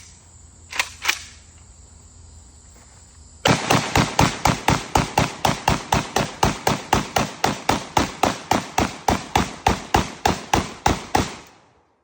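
Draco AK-pattern pistol emptying its magazine in rapid semi-automatic fire: about thirty evenly spaced shots at roughly four a second, after two sharp clicks about a second in.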